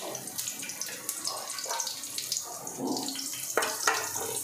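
Chopped vegetables sizzling and crackling in hot oil in a non-stick frying pan, with two knocks from the pan about three and a half seconds in.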